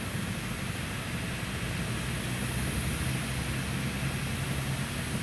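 Steady jet-aircraft noise across an airport apron: an even drone with a low hum under it and a faint high hiss on top.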